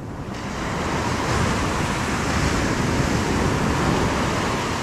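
Ocean surf washing up a sandy beach: a steady rushing that swells about a third of a second in and eases slightly near the end, with a low rumble underneath.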